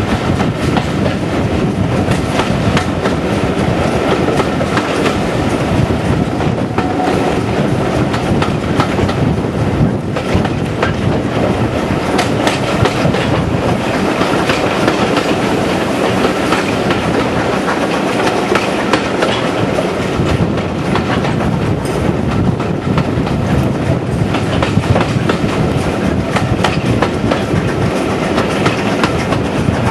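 Steam-hauled passenger train on the move, heard from an open carriage window: wheels clicking over the rail joints over a steady rumble of the coaches running on the track.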